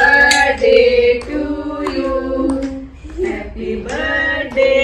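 Several voices singing a song together, a melody of held notes that step up and down in pitch.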